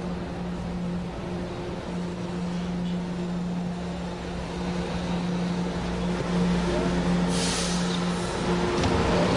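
A metro train in motion, heard from inside the carriage through an auditorium's speakers: a steady motor hum over rumble that grows louder about six seconds in, then a short hiss of air a little after seven seconds.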